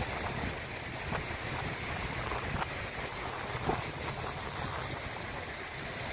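Steady wash of ocean surf with wind rumbling on the microphone, and a few faint ticks, the loudest a little past halfway.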